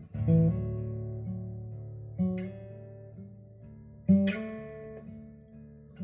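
Acoustic guitar chords strummed slowly, three strums about two seconds apart, each left to ring and fade. The music is a recording played back over hi-fi stand-mount loudspeakers.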